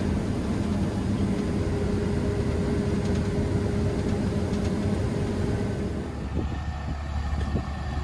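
New Holland combine running under load while its unloading auger empties corn into a grain cart, heard as a steady engine hum with a steady whine. About six seconds in the whine stops and the sound turns to a lower engine rumble with scattered clicks and knocks.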